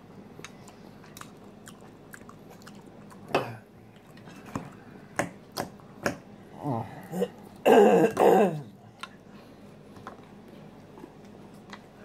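Close-up eating sounds: a fork clicking against the bowl and chewing salad. About eight seconds in comes a loud throat-clearing lasting about a second, with a smaller one just before it.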